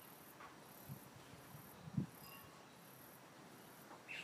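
Faint insect sound over a quiet steady hiss, with one brief low thump about two seconds in.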